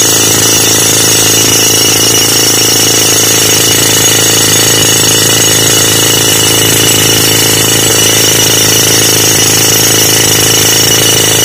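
Hand-held pneumatic rock drill hammering its drill steel into rock, running steadily and loudly without a break.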